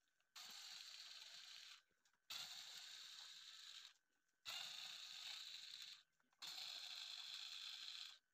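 Cordless electric screwdriver unscrewing the back-panel screws of a subwoofer cabinet. It runs in four steady whirring bursts of about a second and a half each, with short pauses between.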